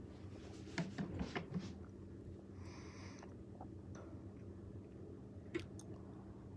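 A few soft clicks and taps, a cluster about a second in and one more near the end, with a brief hiss in between, over a steady low hum.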